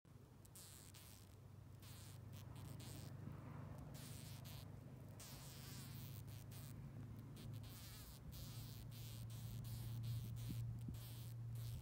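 A bee trapped in a black widow's web buzzing its wings as it struggles: a steady low buzz that grows louder toward the end.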